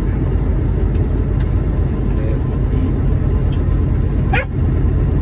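Steady low rumble of a semi-truck's engine and tyres heard inside the cab, driving on a snowy road. A brief rising yelp cuts in about four seconds in.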